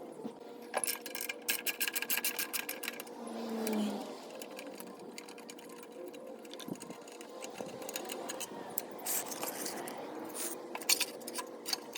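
Hand tools at work on a Briggs and Stratton CR950 engine during teardown: a fast run of mechanical clicks for about two seconds, then scattered clicks and knocks.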